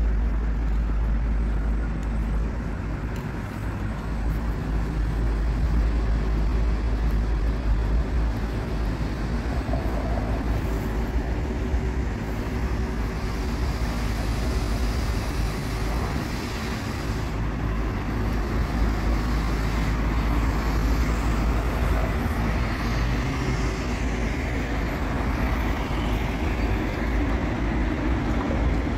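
City street traffic noise: a steady mix of cars and engines with a deep rumble underneath.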